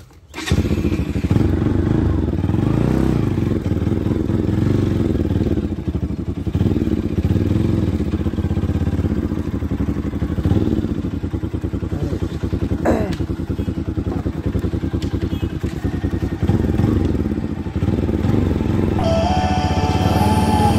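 Motorcycle engine running as the bike is ridden at low speed. The sound comes in suddenly just after the start, and its pitch rises and falls with the throttle.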